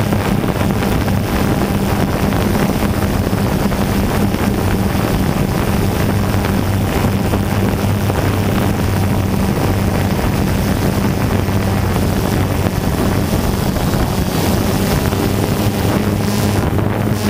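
Motors and propellers of a radio-controlled camera aircraft, heard from on board: a loud, steady drone with an even low hum that holds its pitch. Wind noise rushes over the microphone.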